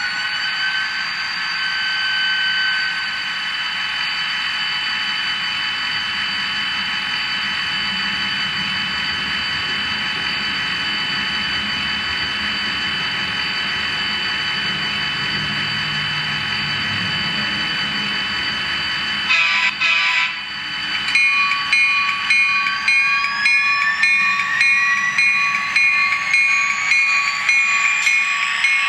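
Sound decoder of an Atlas HO GP40 model locomotive, playing a turbocharged EMD diesel prime mover through the model's small speaker. For about two-thirds of the time it holds a steady turbo whine. After a brief break with clicks, a pulsing engine beat comes in and the whine rises steadily in pitch, as the prime mover notches up.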